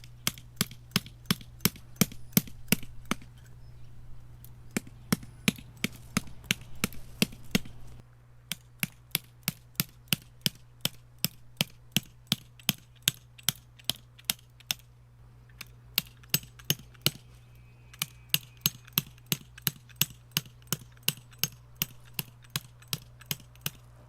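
Sharp, even knocks in steady runs of about three a second, broken by a couple of short pauses, over a faint steady low hum.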